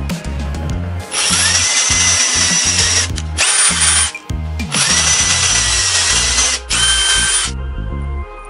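Electric drill boring a hole into a block of wood, in two runs of about three seconds each, its motor whine rising as it spins up at the start of each run.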